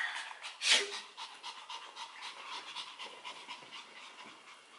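Small dog panting fast and rhythmically, close by. There is one louder sniff-like breath a little under a second in.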